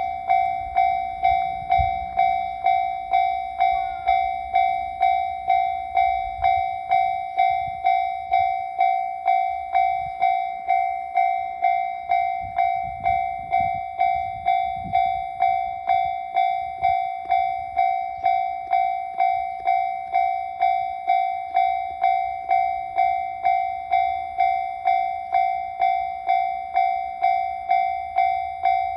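Japanese railway level-crossing warning bell ringing its 'kan-kan' alarm: one ringing note struck over and over in an even rhythm, about one and a half strikes a second.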